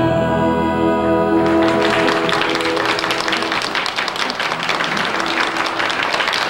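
A country band's final held chord rings out, and about a second and a half in, a studio audience breaks into steady applause that carries on.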